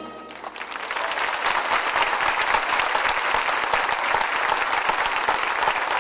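Audience applauding, building up over the first second and then going on steadily.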